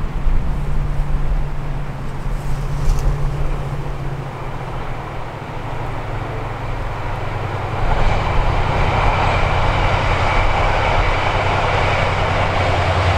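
Class 68 diesel locomotive, with its Caterpillar V16 engine, hauling a TransPennine Express train up the line, a low steady rumble that grows louder about eight seconds in as the train passes below, with a faint high whine over the engine and wheel noise.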